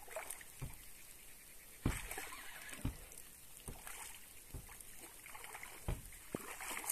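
Water lapping and sloshing, broken by about seven irregular soft knocks.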